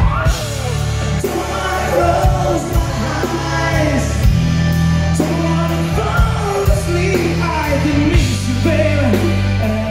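Background music: a pop song with a singing voice over a steady bass and drum beat.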